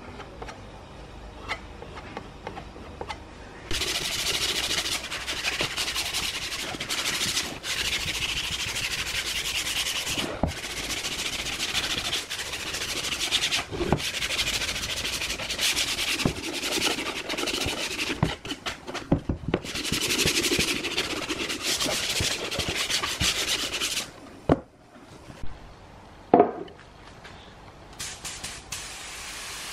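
Sandpaper rubbed by hand back and forth over a pine wood box, a steady scratchy rasp that starts about four seconds in, breaks off briefly a few times and stops a few seconds before the end. A few sharp knocks follow.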